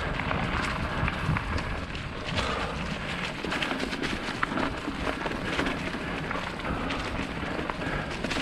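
Mountain bike rolling along a dirt trail: a steady crunching rumble from the tyres with frequent small clicks and rattles, and wind on the microphone.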